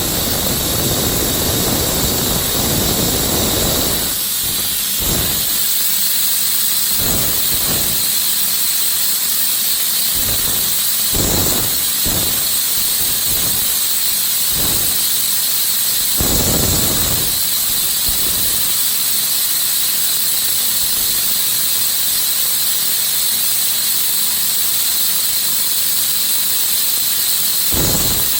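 Ingersoll Rand 7100E 15 HP air compressor setup giving a steady, loud hiss of air. There is heavier low rumbling for the first few seconds, then uneven low rumbling pulses every second or two.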